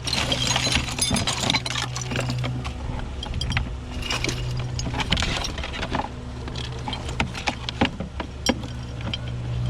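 Hands rummaging through a pile of household trash: objects clinking, rattling and knocking against each other in quick, irregular strokes, over a steady low hum.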